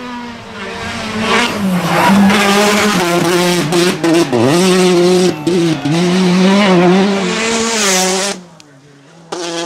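Citroën DS3 R5 rally car's engine at high revs as it comes up and passes at speed on gravel, with a hiss of tyres on loose gravel. The revs dip and climb again a few times as the driver lifts and shifts. The sound cuts off abruptly a little over a second before the end, and another rally car's engine comes in.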